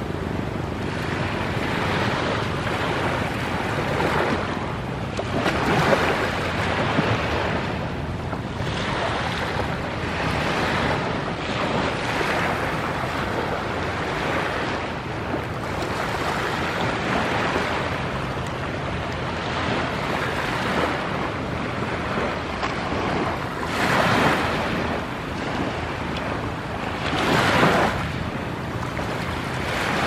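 Small sea waves breaking and washing up onto a sandy beach, the surf swelling and easing every few seconds.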